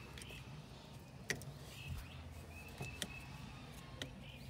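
Pliers working a spring hose clamp on a small hose at a throttle body, giving a few light, sharp metal clicks about two seconds apart, over a low steady hum.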